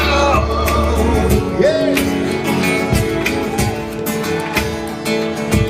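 Live rock band playing an instrumental passage between sung lines: strummed acoustic guitars over electric bass, with a steady beat.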